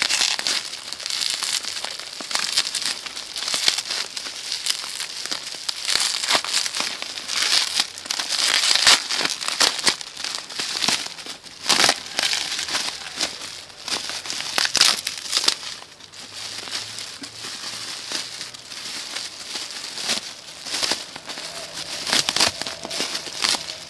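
Bubble wrap and a plastic bag crinkling as hands unwrap a parcel, a steady rustle with irregular sharper crackles. It gets somewhat quieter past the middle.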